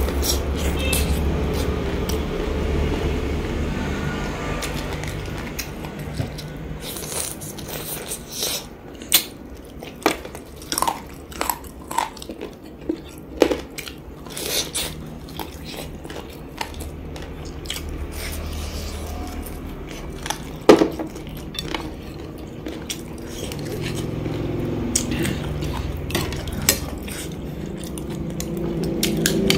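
Close-up eating sounds: biting and chewing a piece of fried food, with many sharp short clicks and a few clinks of a metal spoon against a ceramic bowl, one louder snap about two-thirds of the way through.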